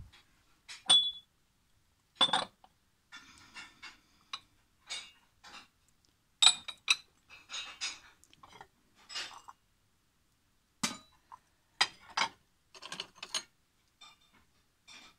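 Porcelain cups, saucers and plates clinking and knocking against one another as they are picked up and shifted among stacked crockery. The strikes are irregular, each with a short high ring; the loudest come about a second in and a little past the middle.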